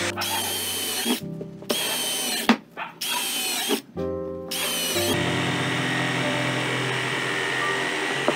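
Power tools working MDF: a cordless drill running in several short bursts, then an electric jigsaw cutting steadily, over background music.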